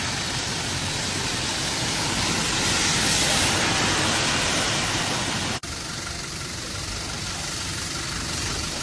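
Steady hiss of rain over a low rumble, brightest about three seconds in, broken off abruptly about five and a half seconds in and followed by a duller, lower noise.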